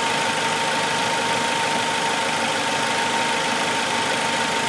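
Suzuki four-cylinder petrol engine idling steadily under test after its shorted ignition coil was replaced, with a steady high-pitched whine alongside.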